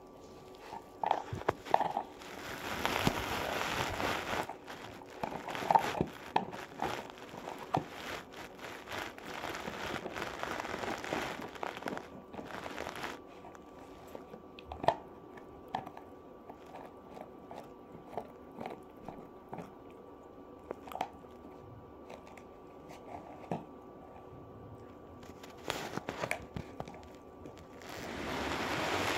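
A puppy chewing and biting on a dried meat chew stick: irregular crunches and gnawing, dense through the first half, then sparser crunches, with a louder bout near the end.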